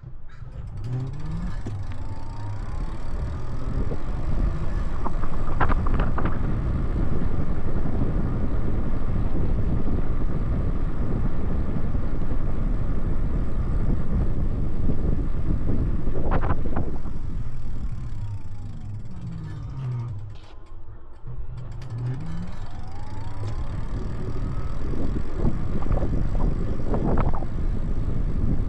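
Wind rush and riding noise from an e-bike in motion, steady and heavy in the low end. A faint whine falls as the bike eases off about two-thirds through, then climbs again as it picks up speed.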